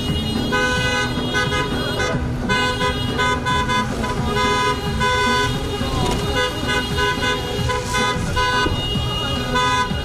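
Car horns honking in repeated short blasts: the celebratory honking of a wedding car convoy, over the sound of traffic on the road.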